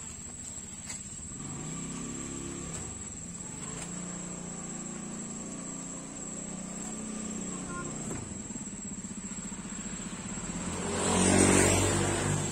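Steady, high-pitched insect chirring runs throughout. About eleven seconds in, a motor vehicle passes by, swelling to the loudest point and then fading.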